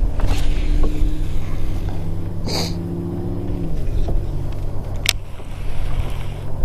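Steady low rumble of wind on the microphone and water around a kayak, with two clicks from a baitcasting reel being handled: one about two and a half seconds in and a sharp one about five seconds in.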